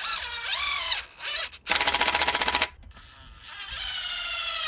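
Cordless impact driver driving screws into cedar. The motor whirs, then about halfway through it breaks into a second of rapid hammering rattle as the impact mechanism engages, then whirs again with its pitch slowly falling.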